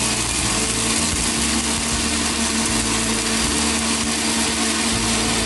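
Crompton Proton mixer grinder running steadily at full speed, its steel jar grinding roasted peanuts, coconut, green chillies and cumin with a little water into a wet paste: a loud, even whir with a steady hum under it.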